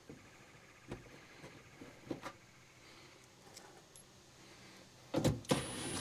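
A few faint small metal clicks as a removed bolt is handled, then near the end a cordless impact driver starts loudly and keeps running, backing out the next 8 mm wheel-well-liner bolt.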